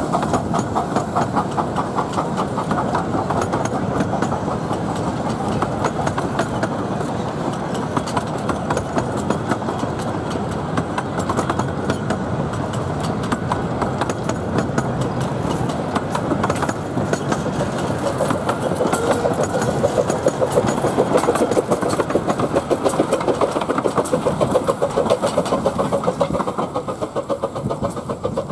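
Steel wheels of miniature-railway passenger coaches running past over the rails, a fast, even clatter that goes on steadily and grows a little louder in the second half.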